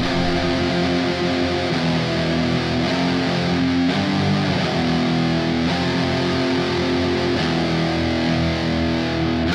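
Instrumental rap beat with no vocals: held, distorted electric guitar chords that change every couple of seconds over a steady level.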